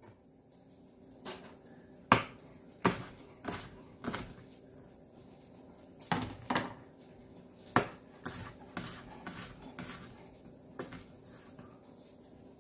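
Chef's knife coming down on a plastic cutting board in single, irregular knocks as the ends are cut off garlic cloves, about a dozen cuts with short pauses between them.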